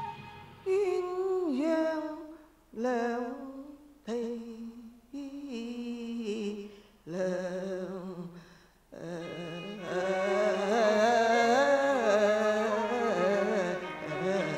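Cantonese opera singing: one voice sings a string of short phrases with pitch slides and wavering, amplified through a microphone. From about ten seconds in, the accompanying instruments play fuller and the voice sings one long unbroken line over them.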